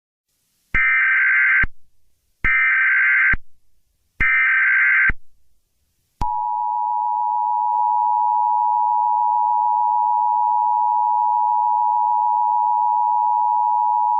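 Emergency Alert System SAME header: three short bursts of warbling data tones, evenly spaced. From about six seconds in comes the steady two-tone EAS attention signal.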